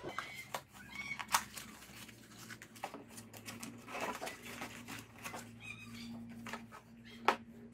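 Cardboard packaging of a replacement xenon headlight bulb being handled and opened: a small paperboard box slid out of its outer carton and its flaps pulled open, with irregular rustling and crinkling and a few sharp clicks, the sharpest about a second in and near the end.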